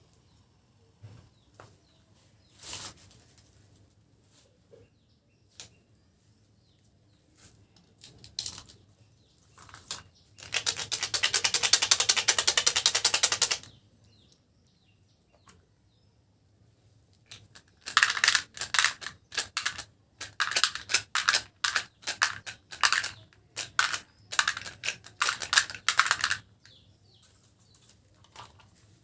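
Hard-shelled candies (Skittles and M&M's) pouring and clattering into small containers: a dense steady rattle for about three seconds starting about ten seconds in, then repeated bursts of clattering from about eighteen to twenty-six seconds, with scattered single clicks in between.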